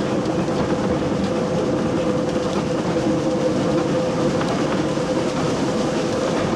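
Steam railmotor No. 93 and its autocoach trailer running along the track: a steady rumble of wheels and running gear with a constant hum underneath.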